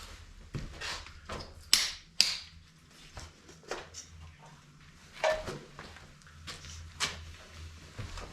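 Scattered metal clinks and knocks of hand tools working on a Ford 460 big block's stuck distributor, which is seized in its bore. A low steady hum runs underneath.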